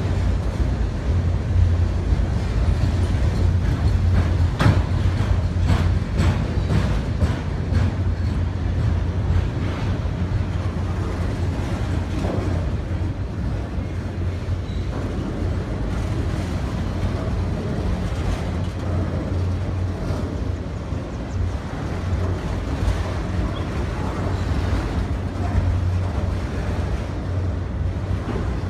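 A train running along a street with a steady low rumble, and a run of sharp clanks between about four and eight seconds in.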